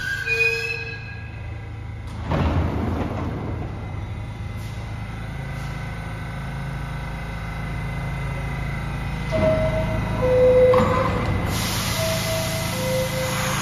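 New York City subway train standing at the platform: a short burst of air hiss about two seconds in, then a steady hum, with a falling two-note door chime sounding twice near the end as the doors are about to close.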